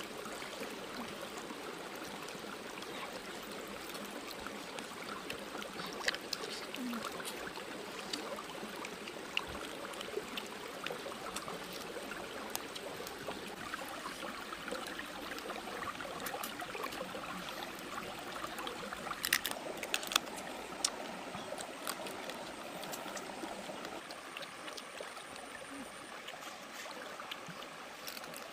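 Shallow creek water running steadily over rocks. A few sharp clicks stand out above it, the loudest a little past two-thirds of the way through.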